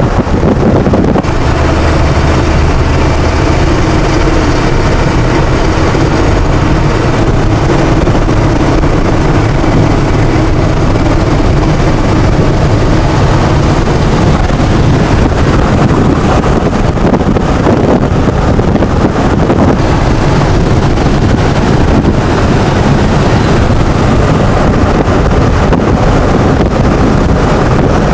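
Steady loud road and wind noise from inside a vehicle cruising at highway speed, with a low engine hum beneath it.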